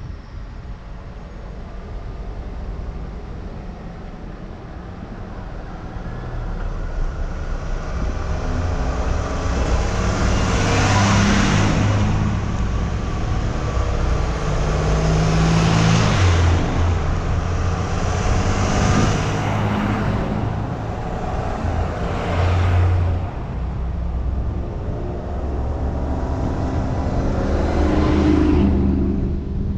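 2004 Ford Focus engine and drivetrain while driving, the engine note stepping up and down in pitch, with road and wind noise that swells loud about five times.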